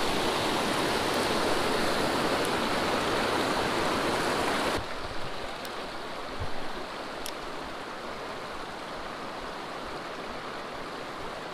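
Rushing water of a small rocky mountain trout stream. A little cascade runs loud and close at first, then the sound drops abruptly about five seconds in to a quieter, steady riffle, with a couple of faint ticks.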